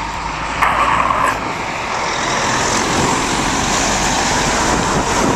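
Tractor-trailer semi passing close by on a snow-covered road, its engine running and its tyres hissing through the snow, the hiss swelling about two seconds in. Wind buffets the microphone throughout.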